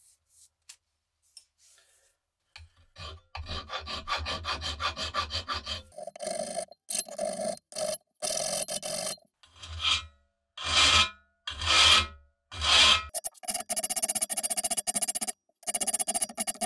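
Hand file rasping over the steel of an antique machete clamped in a bench vise. After a few quiet seconds of light handling comes a run of quick short strokes, then slower separate strokes about a second apart, then quick strokes again near the end.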